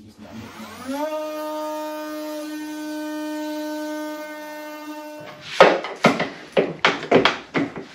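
Handheld oscillating multi-tool starting up, its pitch rising over the first second into a steady buzz that holds until about five seconds in, with its blade at the edge of a Tesla Model S battery pack lid. After it stops comes a string of sharp, irregular scraping and knocking noises as the lid edge is pried with a flat hand tool.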